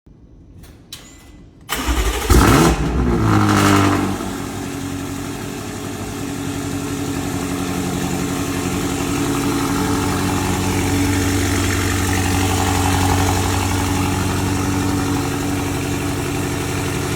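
BMW M5 F90's twin-turbo V8 cold-starting through a loud aftermarket exhaust: a few faint clicks, then the engine fires with a rev flare that rises and falls over about two seconds before settling into a steady, loud idle.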